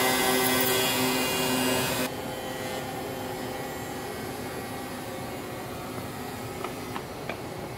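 Sparx automatic ice-skate sharpener running with a steady whine and grinding hiss, then cutting off suddenly about two seconds in. After that a quieter steady background hum remains, with a few faint ticks near the end.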